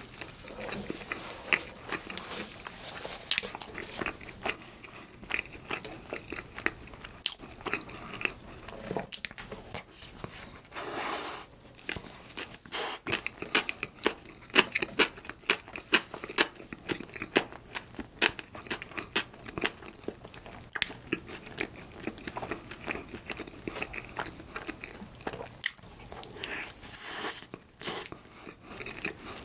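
Chewing and biting a soft bread roll filled with mashed-potato salad, with a dense run of small mouth clicks and a few louder bites.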